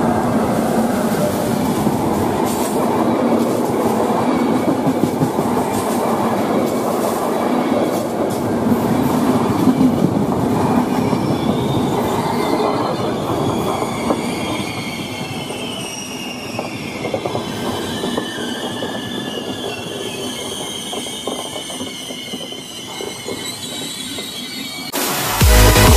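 Passenger train of coaches hauled by an E402B electric locomotive passing close by, wheels rumbling and clattering over the rails. From about halfway, a high, steady squeal from the wheels joins in as the coaches go by. Loud electronic dance music cuts in just before the end.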